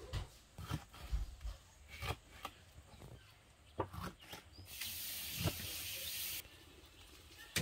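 Kitchen knife slicing a bell pepper on a plastic cutting board: irregular knocks of the blade against the board. About five seconds in, a steady hiss runs for nearly two seconds and cuts off.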